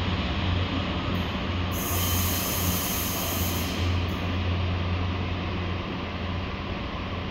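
Pacer diesel railbus pulling away from an underground platform, its underfloor diesel engine giving a steady low drone. A brief high hiss comes about two seconds in.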